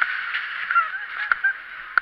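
Riders laughing and shrieking in short, bending calls on a fast-spinning fairground ride, over a steady rushing noise with a few sharp knocks.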